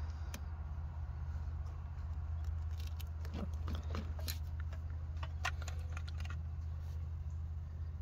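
Light clicks and ticks of wires and plastic butt connectors being handled at a car door's wiring harness, clustered through the middle seconds, over a steady low hum.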